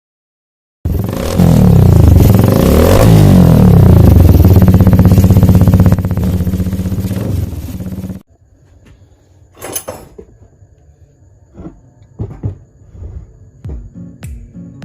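Motorcycle engine revving up and down, then holding a steady high speed, cutting off suddenly about eight seconds in. A few faint knocks follow.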